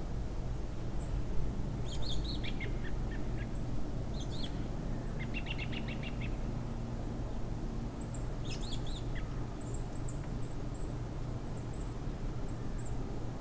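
Small songbirds chirping and calling: scattered short high notes, a quick rapid trill about five seconds in, and a cluster of calls around eight to nine seconds in. A steady low rumble of ambient noise runs underneath.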